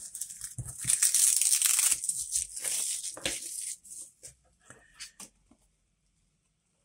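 Tight plastic cling film being torn and pulled off a photo-etch fret: a loud crinkling rip lasting about a second, then shorter bursts of crackling and a few faint clicks.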